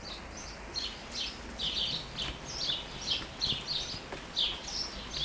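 A songbird calling in a steady run of short, high, slightly falling chirps, about two to three a second, over the even hiss of light rain on the garden foliage.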